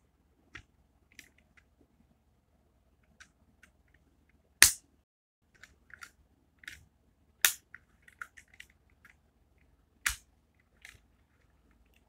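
Small clicks and snaps of a 1:32 die-cast Honda Civic Type R model car being handled, with three much louder sharp snaps a few seconds apart, the first about four and a half seconds in.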